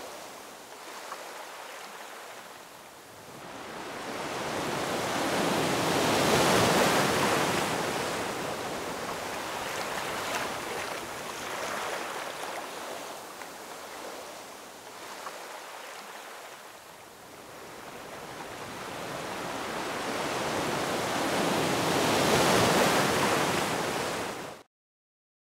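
Ocean surf ambience from the rendering software's sound effects: waves washing in, swelling and easing away twice. It cuts out for about a second near the end, then comes back.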